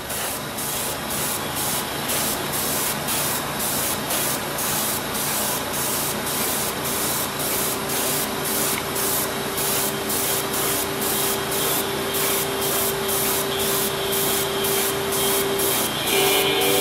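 Airbrush spraying paint: a steady hiss of air and paint that pulses evenly about twice a second.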